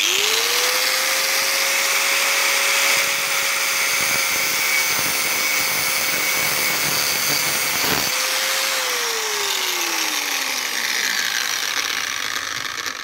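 Bosch angle grinder with a thin cut-off disc spinning up and cutting through a steel tablespoon, a steady motor whine under a harsh grinding hiss. About eight seconds in it breaks off for a moment, and then the motor's whine falls steadily as the disc winds down, the hiss fading near the end.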